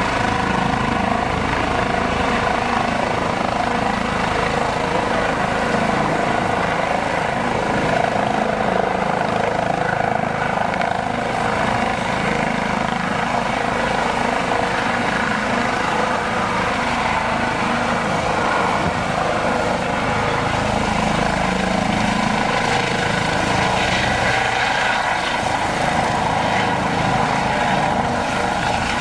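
Eurocopter EC135 police helicopter hovering low, its twin turbines and main rotor running with a steady whine and whirring, joined by the shrouded Fenestron tail rotor.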